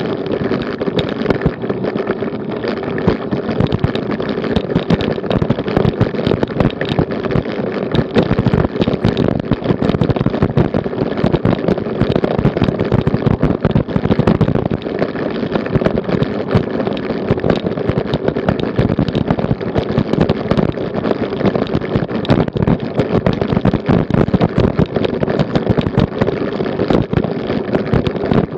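A road bike and its mounted action camera rattling over cobblestones: a continuous dense clatter of rapid jolts from the tyres, frame and camera mount juddering on the stones.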